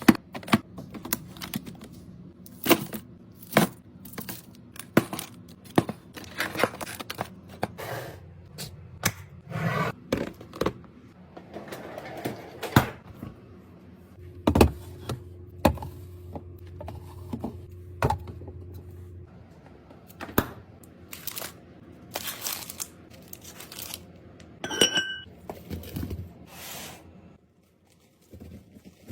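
Snacks and food packages being handled and set into place: an irregular string of sharp clicks and knocks of plastic packaging and containers, with some crinkling and tearing of wrappers.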